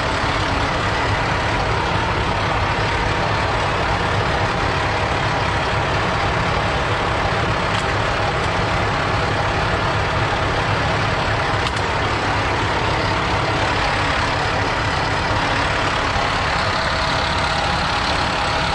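Heavy truck's diesel engine idling steadily, a constant loud rumble with hiss.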